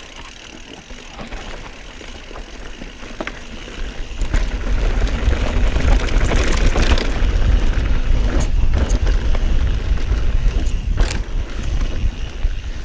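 Mountain bike descending a dirt forest trail at speed: wind buffeting the camera's microphone with a heavy low rumble over tyre noise on dirt. The rumble builds about four seconds in as the bike speeds up, with a few sharp knocks from the bike over the trail.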